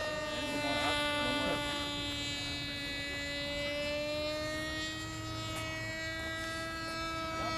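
Magnum XLS-15A two-stroke glow engine of a small RC combat plane in flight, a steady high-pitched whine from its 8x3 propeller. Its pitch sags slightly in the middle and comes back up as the plane passes through its manoeuvres.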